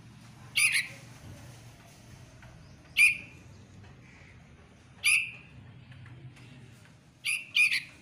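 A caged bulbul giving short, sharp calls, about five in all: one pair near the start, single calls spaced about two seconds apart, and two quick calls close together near the end.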